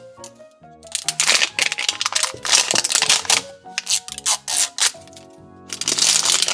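Background music with loud bursts of crinkling and tearing plastic wrapper as a LOL Surprise toy ball is unwrapped layer by layer. The crinkling comes in three spells: about a second in, around the middle, and near the end.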